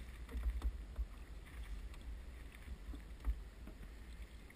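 A wooden boat rowed Venetian-style with a single oar in its forcola: water splashing and lapping at the hull, with a few short light knocks, the clearest about three seconds in. Underneath is a low wind rumble on the microphone.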